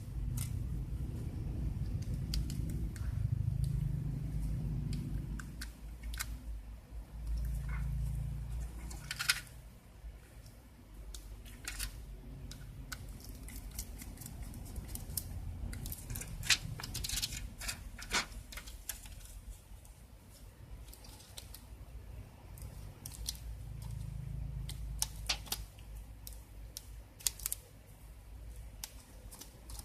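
Scattered clicks and taps of laptop parts being handled and worked on during disassembly, over a low uneven rumble of handling noise.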